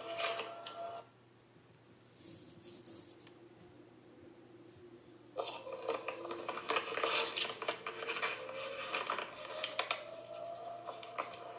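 A tornado siren's faint tone slowly rising in pitch, under a busy clatter of clicks and rattles. Both drop away about a second in and come back about five seconds in.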